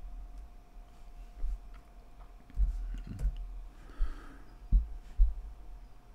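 A few faint computer keyboard and mouse clicks, with several dull thumps, the loudest two near the end, over a faint steady hum in a small room.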